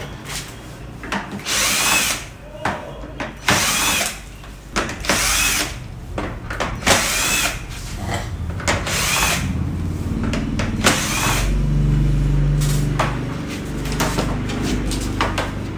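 Cordless electric screwdriver backing out the screws of a flat-screen TV's back cover: about six short whirring bursts, each rising and falling in pitch, with a steadier low hum in the later part.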